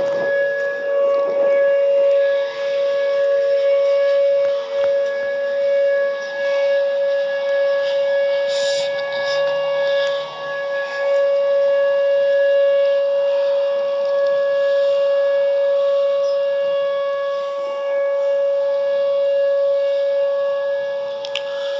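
Whelen WPS-2806 electronic outdoor warning siren sounding a steady tone that holds one pitch, swelling and dipping slightly in loudness.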